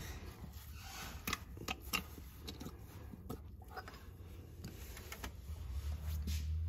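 A few scattered light metallic clicks and taps from hand tools working the oil filter housing bolts on the engine, under a low rumble that grows louder near the end.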